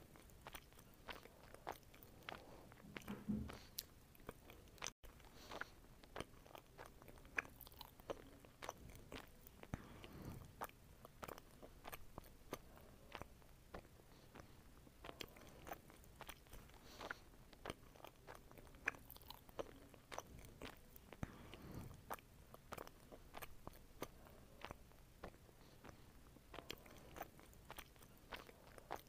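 Quiet close-up eating sounds: a person biting into and chewing soft fruit, melon slices and then a red fruit, with many small mouth clicks throughout.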